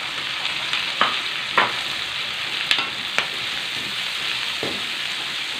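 Squid, shallots and sliced chillies sizzling in oil in a steel wok, with a metal spatula scraping and knocking against the pan several times as the stir-fry is tossed.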